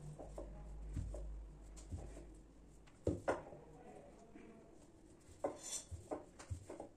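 Wooden rolling pin rolling out small puri dough on a granite countertop: a low rumble for the first couple of seconds, then scattered light knocks and taps of the pin and dough on the stone.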